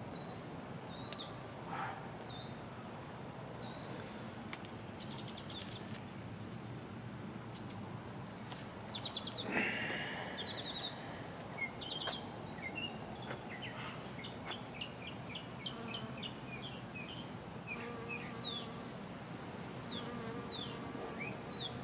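Small birds chirping: scattered short, high chirps and quick sliding notes throughout, with rapid trills of many notes in the second half and one louder, harsher call about ten seconds in.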